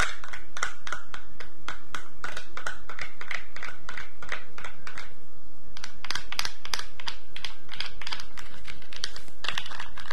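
Close-miked brushing and scrubbing strokes of a mock tooth cleaning, a quick, uneven run of scratchy strokes at about two to three a second.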